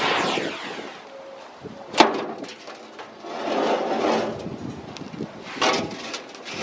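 Oxy-acetylene cutting torch hiss fading out in the first second, then a sharp metal clank about two seconds in, followed by scraping and knocking as the rusty steel blade carrier disc of a Servis Sat 7 shredder is worked loose from the deck by hand.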